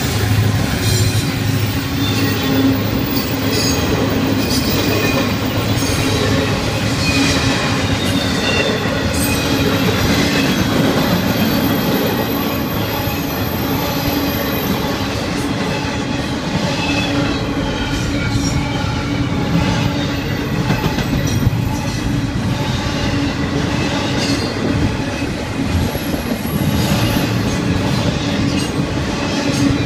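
Florida East Coast Railway intermodal freight train's well cars, loaded with double-stacked containers and trailers, rolling steadily past: a continuous wheel-on-rail rumble with repeated clacking over the rail joints and some thin wheel squeal.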